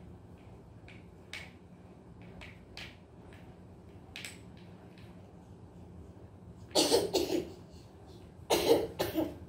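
Small wooden puzzle pieces clicking and tapping against a wooden jigsaw board as they are fitted in, a light tap every second or so. About two-thirds in and again near the end come two short, much louder bursts of coughing, each of two or three coughs.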